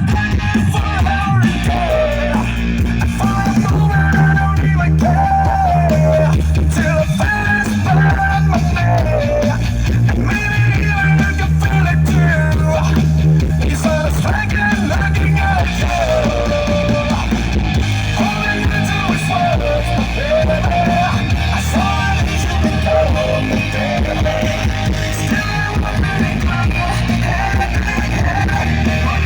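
Rock music with a heavy bass line played loud over an OHM TRS PA speaker rig with subwoofers.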